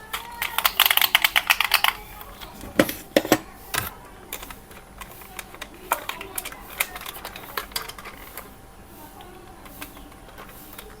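Plastic clicking and tapping from hands handling toys and their packaging. A quick run of rapid clicks in the first couple of seconds is followed by scattered single knocks and taps.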